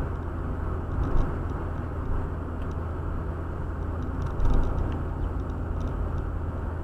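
Car interior road noise while driving: a steady low drone of engine and tyres, with two brief bumps, about a second in and just past the middle.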